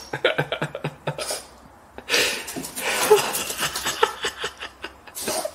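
A person laughing in quick breathy bursts, several to the second, with a longer breathy stretch a couple of seconds in.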